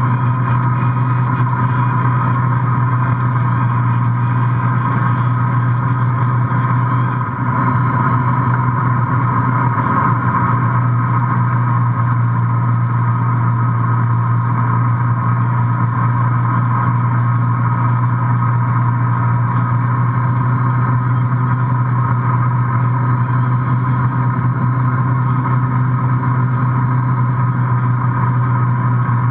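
Inboard engine of an MB Sports B-52 wakesurf boat running under way at a steady speed, a constant drone mixed with the rush of its wake.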